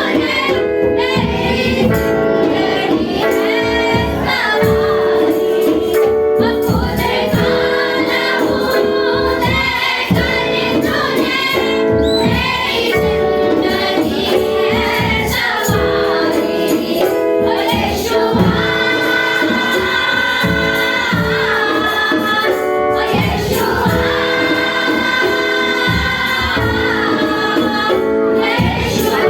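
Christian worship song sung by a group of women's voices over instrumental accompaniment with a steady beat.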